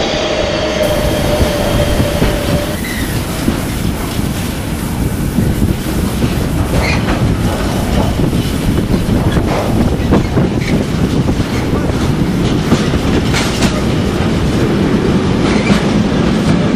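Freight train wagons rolling past at close range, wheels clacking and clicking over the rail joints with a steady rumble. A high wheel squeal dies away about three seconds in.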